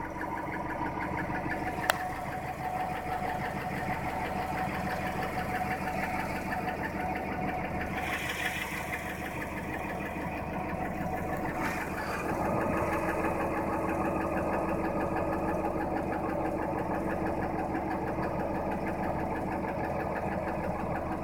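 Engine running with a fast, even knocking in its sound, typical of an engine knock; it gets slightly louder about halfway through.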